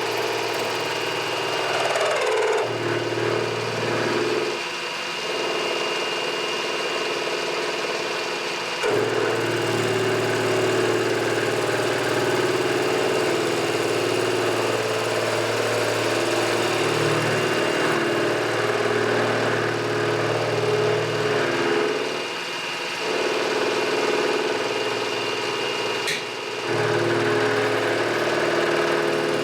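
Machine tool running in a metal shop: a steady motor hum with mechanical vibration that changes briefly several times.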